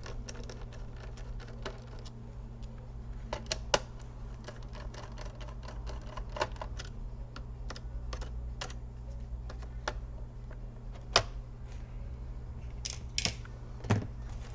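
Light, irregular clicks and taps of a small screwdriver turning screws out of a laptop's plastic case, the screws and tool knocking on the plastic, over a steady low hum.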